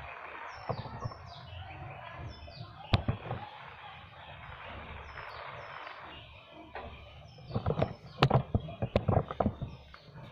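Small birds chirping with short falling chirps repeated in little runs, over a steady outdoor hiss. A sharp knock comes about three seconds in, and a cluster of louder knocks and clicks comes near the end.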